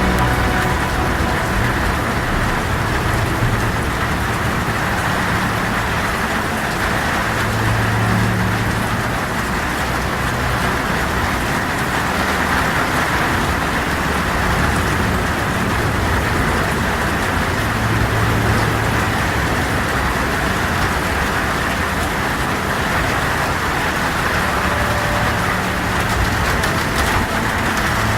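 Heavy rain falling steadily, a dense even hiss with no breaks. A low hum swells briefly underneath three times.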